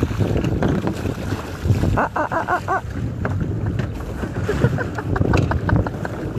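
Water churning and splashing against the side of a boat, with wind buffeting the microphone. A brief squeaky warble of five or six quick rising-and-falling notes comes about two seconds in.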